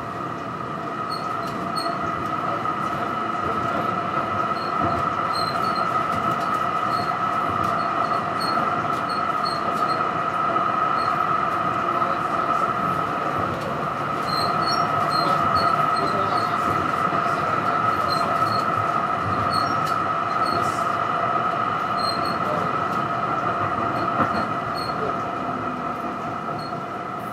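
Melbourne tram in motion, heard from inside the car: a steady high whine over the rumble of steel wheels on the rails. It grows louder over the first few seconds.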